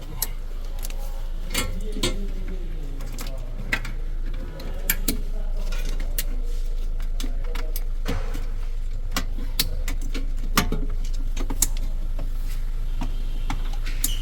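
Irregular sharp metallic clicks, taps and clanks of a Toyota hybrid battery pack and its fittings being handled and set into place, over a steady low hum.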